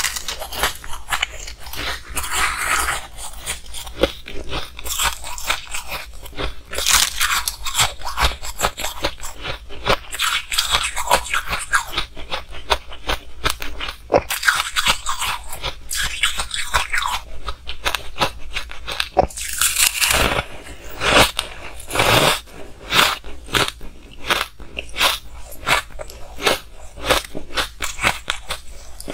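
Close-miked crunching and chewing of mouthfuls of purple shaved ice: a rapid, unbroken run of crisp crunches, with a few louder bites along the way.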